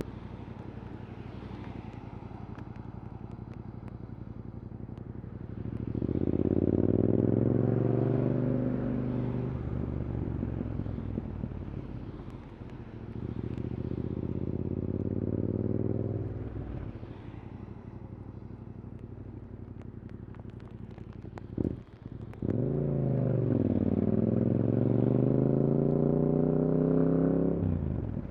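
Yamaha R7 parallel-twin with an Akrapovič exhaust, heard while riding: the engine pulls hard three times, pitch climbing through the revs, with quieter cruising between the pulls. A brief sharp crack comes shortly before the last pull.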